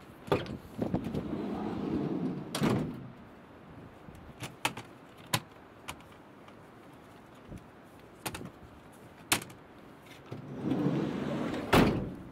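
A van's sliding side door unlatches with a click and rolls open, stopping with a clunk. A few light knocks and clicks follow, then the door rolls shut and closes with a loud slam near the end.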